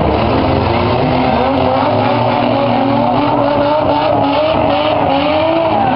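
Several compact-car engines revving hard at once, a dense mix of wavering engine notes.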